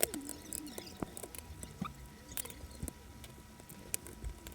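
Irregular small clicks, taps and scratches of plastic and metal laptop parts being handled and pried apart during disassembly of an old Pentium III notebook.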